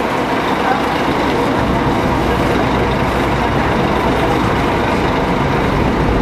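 Scania diesel engine of a Marcopolo Paradiso 1800 DD G7 double-decker coach running as the coach pulls away, a steady low drone that grows stronger about a second and a half in.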